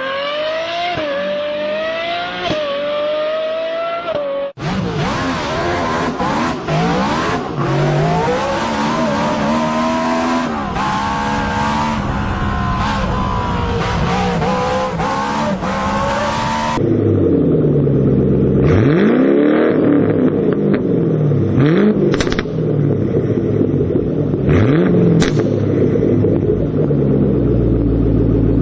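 A series of different multi-cylinder car engines being revved, joined by abrupt cuts about four seconds in and again past the middle. The first two rise and fall in pitch through repeated revs, and the last is a deeper engine blipped several times between idles.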